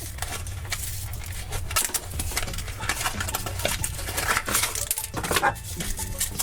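Foil wrapper of a chocolate surprise egg crinkling and crackling in quick, irregular bursts as it is peeled off the egg by hand.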